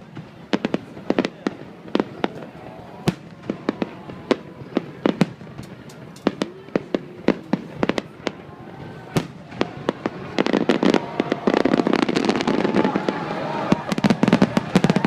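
Fireworks going off: scattered sharp bangs through the first ten seconds, then from about ten seconds in a dense, louder crackling of many bursts at once.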